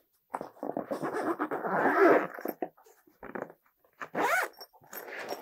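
Zip of a soft padded pistol carry case being pulled shut, a rasping run of zipper teeth in two pulls: a long one in the first half and a shorter, rising one about four seconds in.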